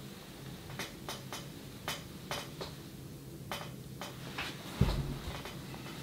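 Faint scattered clicks and light taps from a DSLR camera being handled and moved, about ten in all, with a low bump just before five seconds in, over a steady low hum. No autofocus motor whir stands out; the lens being tested is a quiet Canon STM stepper-motor lens.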